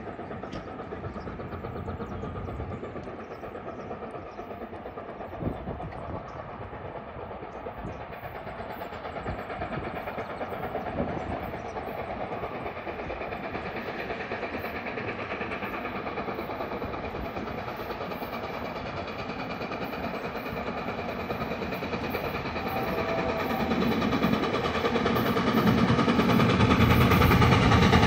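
Canadian Pacific 2816 steam train approaching, its sound growing steadily louder over the last several seconds.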